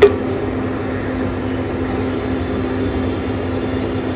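A wooden spatula knocks once against a kadai of milk at the start of stirring, over a steady low hum and rumble.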